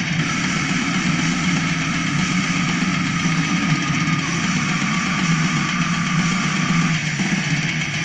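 Heavy metal music with dense distorted guitars, played through a pair of small Philips SPA1260 2.0 desktop speakers and picked up in the room. The sound is heavy around 100–200 Hz, which the reviewer finds a bit too punchy for these speakers, and a high held note runs over the riff until near the end.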